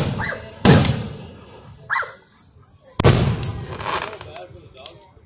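Aerial firework shells bursting overhead: sharp booms right at the start, about 0.7 s in and again about 3 s in, each trailing away in a long echo. The last boom is followed by a scatter of crackles.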